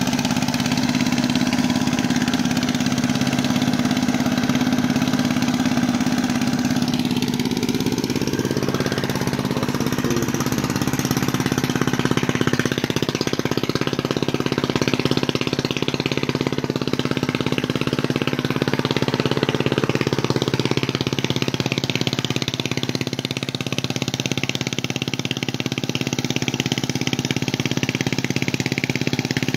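Mud boat tiller's engine running steadily as the tiller works through a flooded rice paddy, holding an even pitch.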